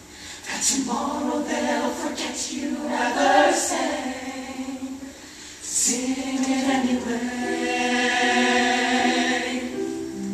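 Mixed-voice show choir singing in harmony, with crisp sibilant consonants; after a brief drop in level it swells into long held chords from about six seconds in.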